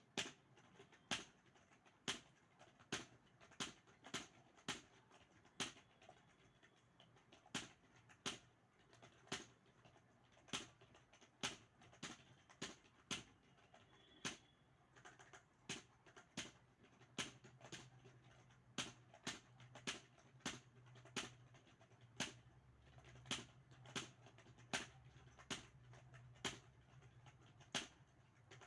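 Computer keyboard keys being typed on, a run of sharp, irregular clicks at roughly one to two a second.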